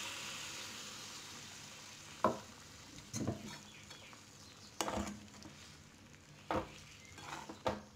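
Metal spoon stirring boiled butter beans and potato pieces into masala in a metal pan, with about five short scrapes and knocks against the pan. A soft sizzle fades away at the start as the beans' cooking water goes into the hot masala.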